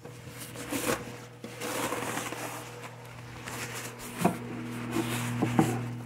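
Paper towel rustling and rubbing over a ceramic plate as it is wiped dry, with a few light knocks near the end.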